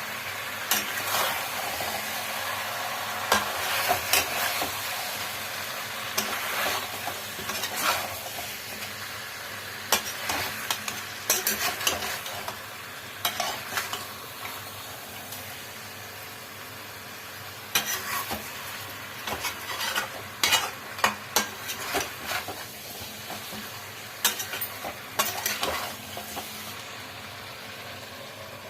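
Chicken curry sizzling as it fries in a pan, stirred with a spoon that scrapes and knocks against the pan in irregular bursts.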